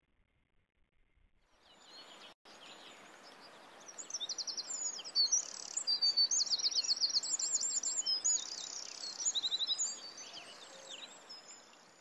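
Small songbirds singing over a soft steady hiss of outdoor ambience: rapid high trills and warbling phrases. It starts about two seconds in, is loudest in the middle, and fades near the end.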